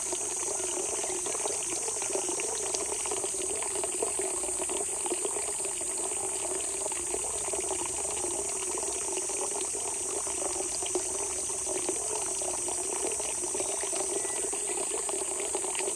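Spring water gushing out of the ground, a steady murmur of flowing water, with an even high hiss above it.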